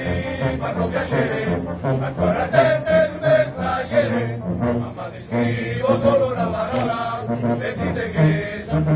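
Bandsmen of a Bersaglieri fanfare singing together as a male chorus, a chant-like song in unison.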